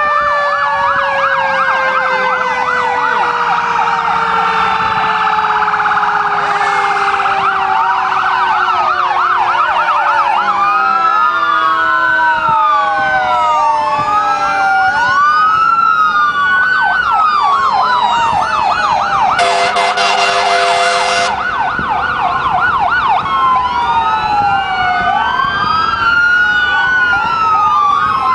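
Many fire truck sirens sounding at once, overlapping slow wails with fast yelping warbles and swooping rises and falls. A steady horn blast of about two seconds cuts in about twenty seconds in.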